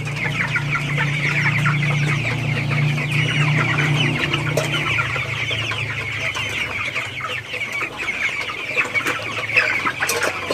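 A shed full of young broiler chickens, about four weeks old, cheeping and clucking all together in a dense, constant chatter. A low steady hum runs underneath and fades about halfway through.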